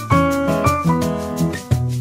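Background music: an upbeat tune with piano and a steady beat.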